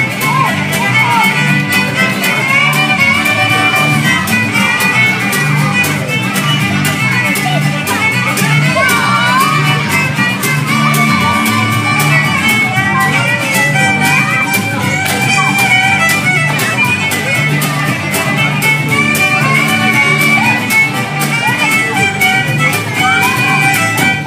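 Live folk band instrumental break: a fiddle plays the melody over strummed acoustic guitar and a steady, pulsing electric bass line.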